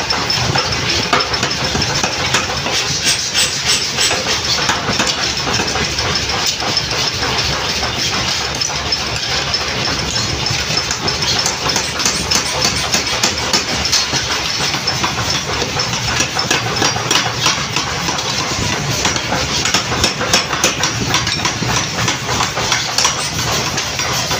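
Mechanical power hammer running, its ram striking red-hot steel on the die in rapid repeated blows as the steel is drop-forged.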